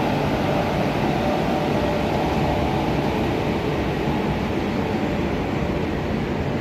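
A train hauled by a WAP-4 electric locomotive rolling past: a steady rumble of steel wheels on the rails as the locomotive and then its coaches go by, with a faint whine at the start that fades within about a second.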